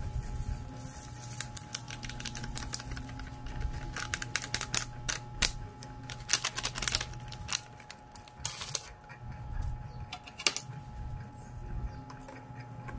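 Plastic instant-coffee sachet being handled, crinkling and crackling in irregular bursts with scattered sharp clicks.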